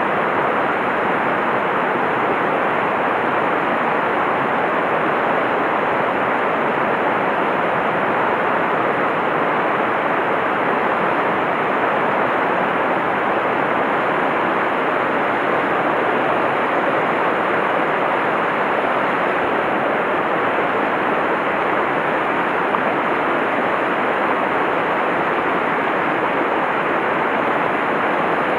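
A rocky mountain stream rushing over boulders and through riffles: a steady, even rush of running water.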